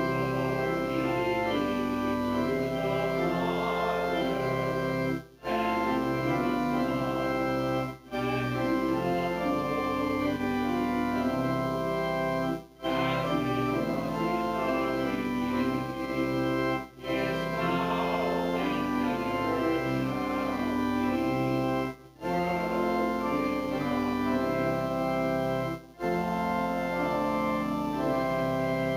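Church organ playing a slow hymn-like tune of sustained chords in phrases, each phrase ended by a brief break.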